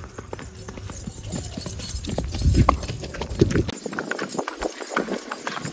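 Horses' hooves clip-clopping on a paved lane: a mare and her foal moving at an easy pace, with irregular overlapping hoof strikes.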